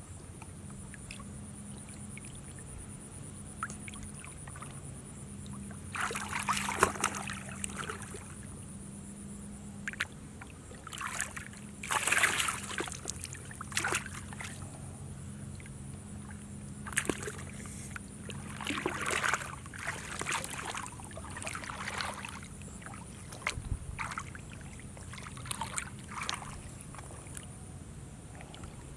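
Water splashing and sloshing in a series of irregular bursts, the loudest about six and twelve seconds in, over a steady low hum and a high thin whine.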